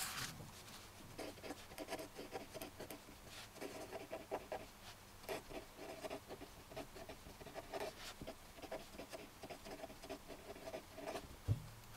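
A pen writing on a sheet of paper: faint, irregular scratching strokes as words are written out.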